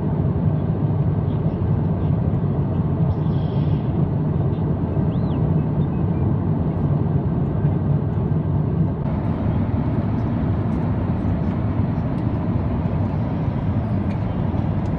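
Steady cabin noise of an Airbus A350-900 in cruise: a low drone of airflow and engines heard from inside the passenger cabin. The hiss above the drone grows a little fuller about nine seconds in.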